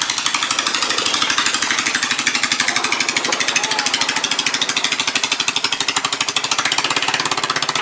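Small boat engine running steadily close by, a rapid, even pulsing putter.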